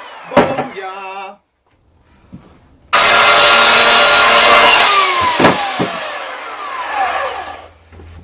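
Chainsaw cutting into a wood log: a short stretch of the saw running, a pause, then a loud cut that starts abruptly about three seconds in, the engine pitch sliding down under load, and fading away near the end.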